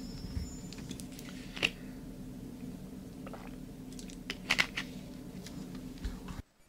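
Room tone of a large conference hall: a steady low hum with scattered light clicks and rustles, cutting off suddenly to silence near the end.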